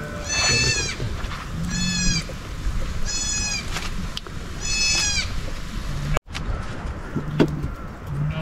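Lamb bleating four times, about every second and a half, each call a short high cry that rises and falls.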